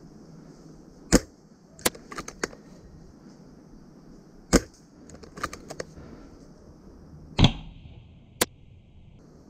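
AAC T10 spring-powered airsoft sniper rifle firing three shots about three seconds apart, each one a single sharp crack. Lighter clicks fall between the shots.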